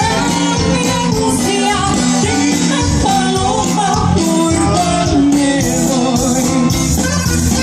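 Tejano band music with a steady beat and a singer's voice over it.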